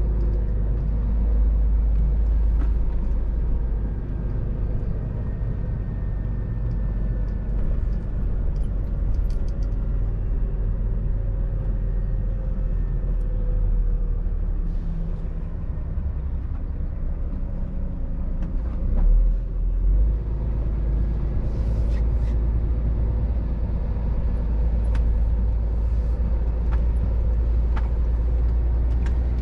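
Scania R500 truck's diesel engine running at low revs while the truck drives, heard from inside the cab over a steady low road and tyre rumble. A brief low thump comes about two-thirds of the way through.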